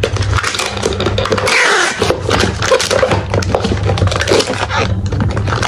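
Packing tape being pulled off a handheld tape-gun dispenser and pressed onto a cardboard box to seal it, with the scrape and rip of the tape unrolling and the box being handled.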